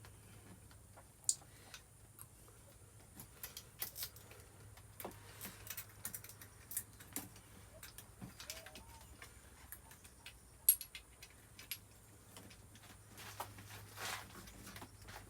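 Scattered light clicks and taps of small metal parts and tools being handled while working on a dirt bike's carburetor and throttle cables, with a sharper click about a second in and another near eleven seconds, over a faint steady low hum.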